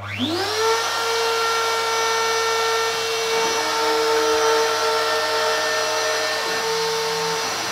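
DeWalt trim router on a CNC machine switched on, its whine rising quickly over the first half-second to a steady high pitch and then running steadily at about 27,000 rpm as the carving job starts.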